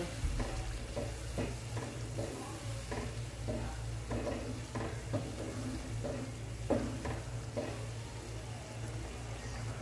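Wooden spatula stirring and scraping mash dal (urad lentils) in a non-stick frying pan, about two strokes a second, while the dal sizzles in its masala gravy with a cup of water newly added for slow cooking.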